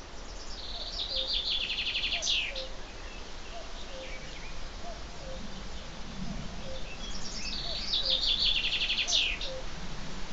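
Woodland birdsong: a songbird sings two short trilled phrases, each ending in a quick flourish, one near the start and one about seven seconds in. A lower two-note call repeats about once a second in the background.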